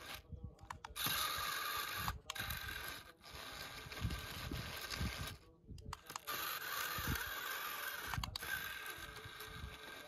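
Small electric gear motor of an RC model tractor running and grinding under heavy load, with low knocks, as it tows a loaded trolley through sand; it cuts out briefly several times and starts again.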